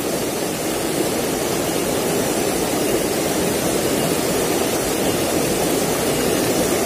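Fast-flowing shallow river rushing and churning over rocks: a steady, even rush of water from a strong current.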